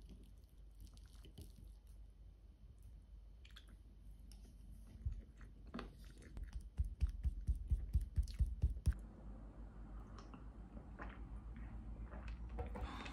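Eating sounds: light clicks of a fork on a ceramic plate as it cuts into a soft chocolate oatmeal cake, then a couple of seconds of quick, rhythmic chewing at about three to four a second. A single knock near the end.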